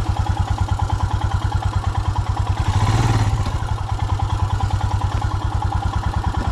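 Motorcycle engine running at a low, steady idle with an even, rapid thump, and a brief swell in the engine sound about three seconds in.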